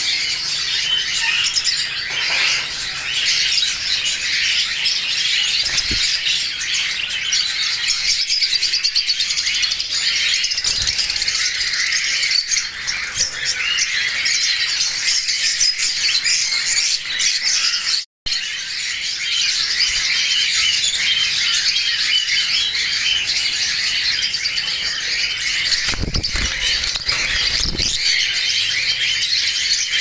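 A flock of caged lovebirds chattering and squawking nonstop, a dense high-pitched chorus of chirps. It drops out for an instant about midway, and a few low knocks come near the end.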